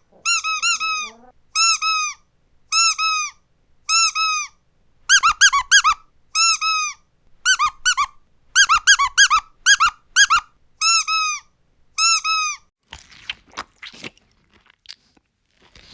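Squeaky dog toy squeezed over and over, giving short high squeaks in quick clusters of two to four, about once a second. Near the end the squeaks stop and crunching, chewing sounds take over.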